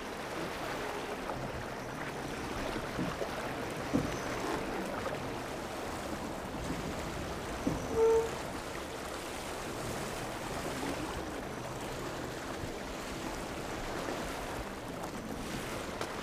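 Water washing and lapping steadily along a moving sailing boat's hull. There is a single knock about four seconds in and a short pitched note about halfway through.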